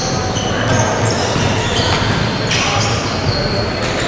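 Basketball game on a hardwood court: sneakers squeaking in many short, high chirps as players cut and change direction, over the bouncing of a dribbled ball, with the echo of a large hall.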